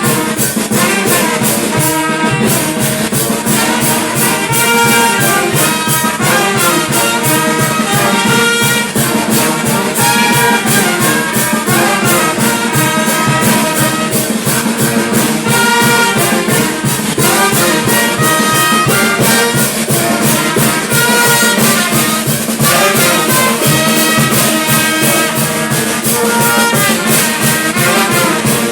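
Brass band playing: trumpets and trombones carry the melody over a steady percussion beat.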